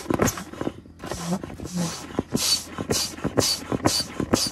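A small pack-raft foot pump being pressed over and over to inflate an air mattress through its hose. Each press gives a short whoosh of air, about two a second.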